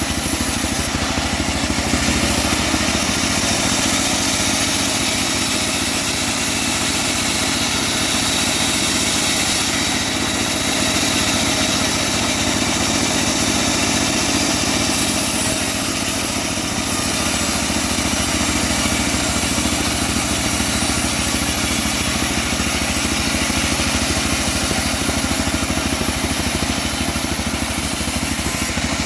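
Engine-driven homemade bandsaw sawmill running steadily, its motor and blade making a continuous mechanical din with no pauses.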